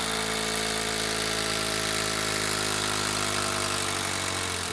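HILTI 12-volt brushless impact driver hammering steadily under load as it drives a long screw into a wood round. It runs at an even pitch and level and stops near the end.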